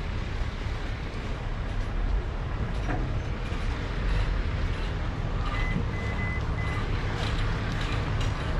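Steady low rumble of wind and movement noise on a helmet-mounted camera microphone while walking, with three short high beeps a little past the middle.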